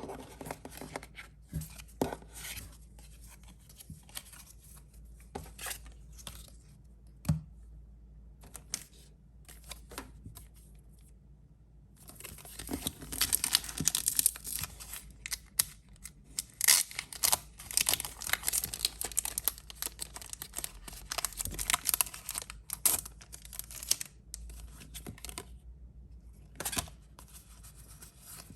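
Packaging of a Pokémon card collection box being handled and torn open. First come scattered scratches and taps, then from about twelve seconds in a long stretch of dense tearing and crinkling, then a few more taps near the end.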